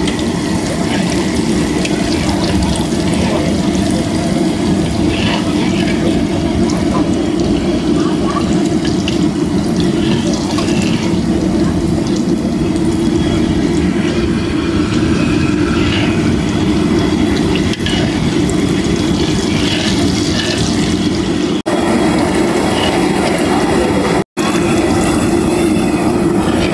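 Steady loud sizzle of batter-coated fritters deep-frying in a large iron kadai of hot oil, stirred and lifted with a slotted metal skimmer.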